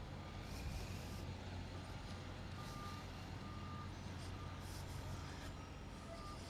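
Faint reversing alarm on a heavy vehicle, beeping at an even pace, a little more than once a second, from about two seconds in, over the steady low hum of diesel engines.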